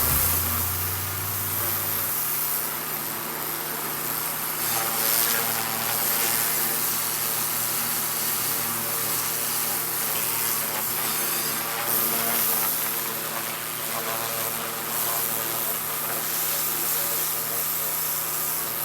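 Pressure washer running steadily, its water jet hissing against a truck's frame.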